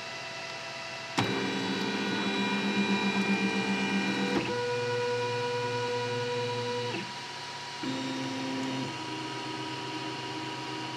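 Desktop 3D printer running, its motors whining in steady tones that jump to a new pitch every few seconds as the print head changes moves. A sharp click about a second in brings the loudest stretch.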